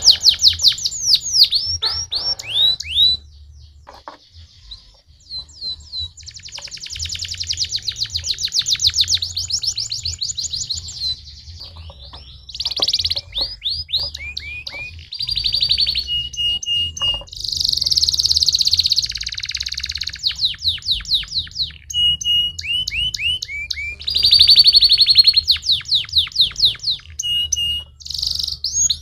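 Domestic canary singing: phrases of rapid trills and rolls of fast repeated high notes, with a few short steady whistles, broken by brief pauses.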